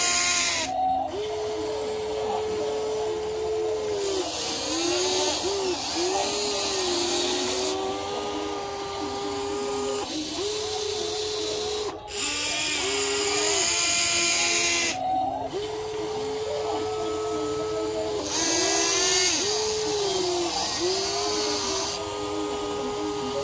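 WLtoys 16800 RC excavator's small electric motors whining as the boom, arm and bucket work, the pitch rising and falling as each move starts and stops. The whine cuts out briefly three times.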